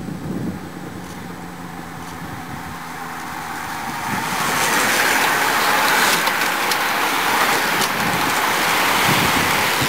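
A bunch of racing road bicycles sweeping past close by: the hiss of tyres on tarmac and the whirr of chains and freewheels, swelling about four seconds in.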